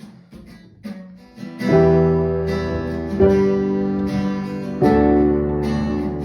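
Acoustic guitar: a few quiet picked notes, then strummed chords coming in loud about a second and a half in, changing chord twice.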